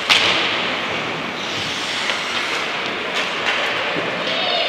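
Ice hockey play in a rink: a steady hiss of skates on the ice, broken by several sharp knocks of stick, puck and boards, the loudest right at the start with a short ring after it.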